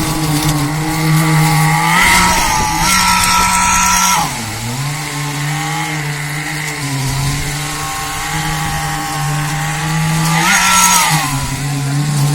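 Engine of construction machinery running fast and steadily, its pitch sagging and then recovering a few times as the load changes. Short bursts of hissing noise come in about two seconds in and again near the end.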